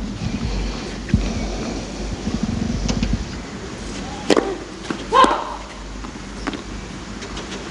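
Tennis ball bounced several times on the clay before a serve, then the sharp crack of the racket striking the serve about four seconds in. A short shout follows about a second later, then another ball strike, over a low background murmur.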